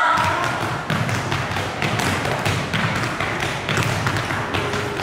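Stepping: a quick, irregular run of foot stomps on a hard floor and hand claps and slaps, with faint voices behind.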